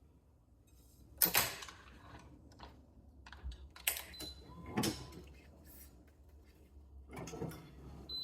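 Handling noises from stringing a badminton racquet: several short scrapes and clicks, a few seconds apart, as the string and the stringing machine are worked.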